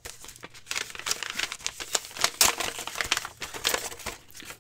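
Folded paper wrapping being pulled open and unfolded by hand, with continuous irregular crinkling and rustling.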